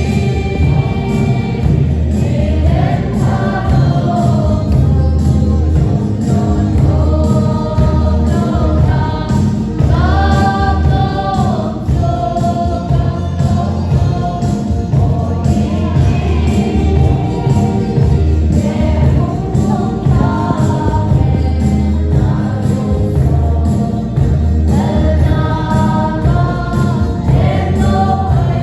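Gospel-style music with a group of voices singing over a steady heavy beat.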